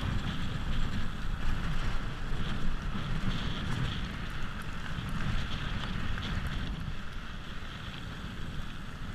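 Wind rushing on the microphone over the rolling crunch of mountain-bike tyres on a gravel track.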